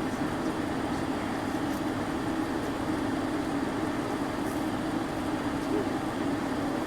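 Sentry 40V1T outdoor warning siren sounding a steady tone during a test.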